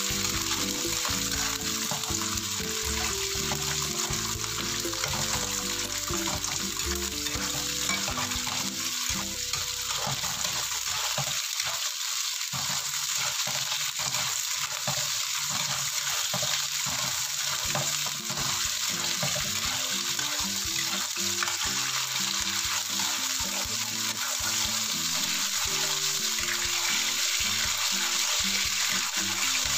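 Green beans sizzling steadily as they stir-fry in hot oil in a nonstick wok, a spatula stirring and turning them around the pan.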